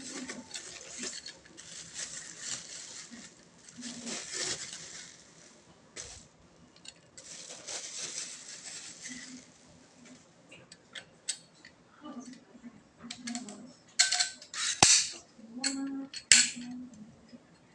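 Bicycle parts and packaging being handled: rustling and scraping noise, then a run of sharp metallic clinks and knocks that are loudest near the end.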